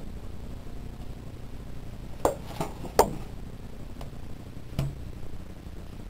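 A bowl knocking against a wooden table as bread dough is tipped out onto it: three sharp knocks a little over two seconds in, the last the loudest, then a duller thud near the end.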